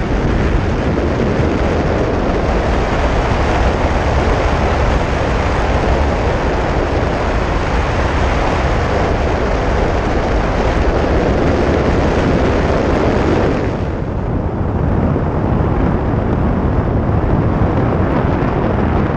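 Wind buffeting a handheld camera's microphone during paraglider flight: a loud, steady rumble and rush of air, its hiss easing slightly about fourteen seconds in.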